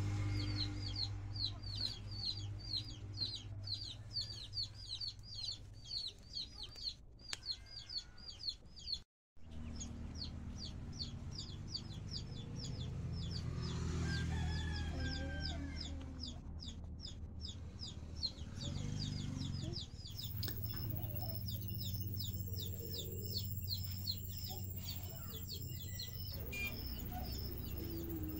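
Chickens clucking, with a rapid series of short, high chirps at about three a second running through most of it, over a steady low rumble.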